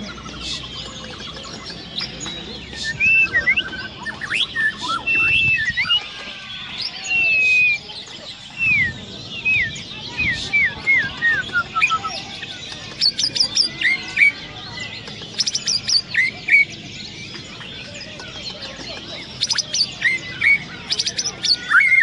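White-rumped shama (Bornean murai batu) singing: a long, varied run of loud whistled phrases. There is a string of downward-sliding whistles about 10 s in, and quick high trilled bursts here and there, with a short lull about two-thirds of the way through.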